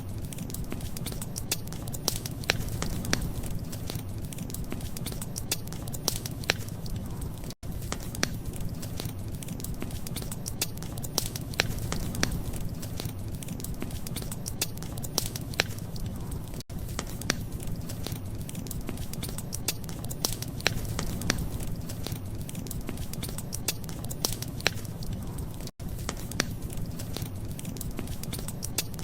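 Wood fire crackling: frequent sharp pops and snaps over a steady low rumble of burning. The sound drops out briefly three times, about nine seconds apart.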